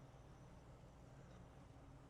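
Near silence: a faint, steady low hum of background noise.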